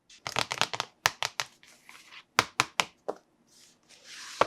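Hard plastic toys and packaging being handled: a run of sharp clicks and snaps, a quick cluster in the first second and then single clicks every quarter to half second, with some crinkling between them.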